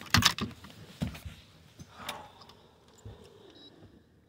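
Handling noise on a boat deck: a quick run of sharp knocks and clicks right at the start, then a few scattered single taps and a short rustle.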